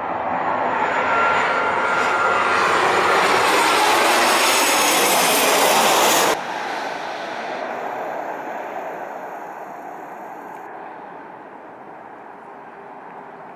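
Boeing 737-700's CFM56-7B jet engines on final approach, the rush and whine swelling as it passes close overhead, then cut off abruptly about six seconds in. A quieter jet rush follows and fades as the airliner descends away toward the runway.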